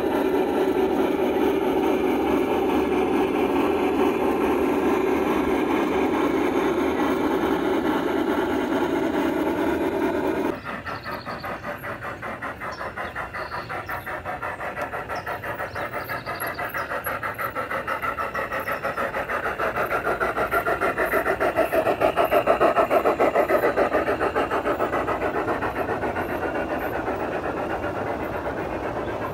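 1:20.3-scale model train running along the track, a steady sound with a fast even rhythm. About ten seconds in it drops off suddenly, then swells and fades again as a train of freight cars rolls past.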